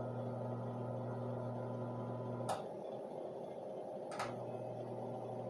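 Old Wizard box fan's electric motor, running with no blade fitted, hums steadily on a test run. A toggle switch clicks about two and a half seconds in and the hum stops. It clicks again about a second and a half later and the hum comes back, and there is another click near the end.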